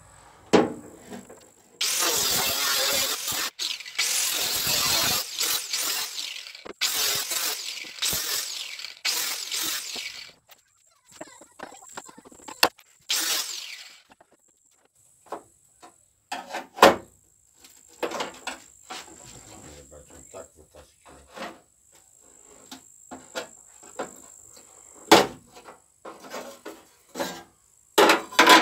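Angle grinder with a cutting disc cutting through sheet metal in several loud bursts over about eight seconds, with one more short cut a few seconds later. After that come scattered clicks and knocks of metal pieces being handled, one sharp knock near the end.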